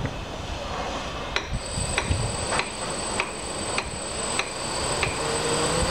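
A regular ticking, about one tick every 0.6 s, over a steady high whine. Near the end, the X8 octocopter's eight Turnigy 1100 kV brushless motors, carrying 11x4.7 props, start to spin up with a rising pitch.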